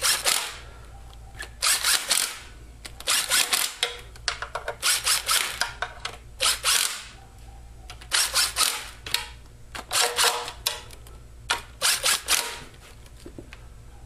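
Cordless impact driver running oil pan bolts down in about ten short bursts, each under a second, with pauses as it moves from bolt to bolt.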